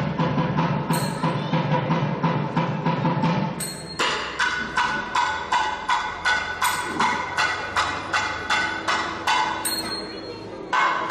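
Thavil drums played in a solo passage: crisp, fast strokes on the drumheads, about four a second, with deep bass strokes that drop out about four seconds in. Small talam cymbals clash three times, marking the rhythm cycle.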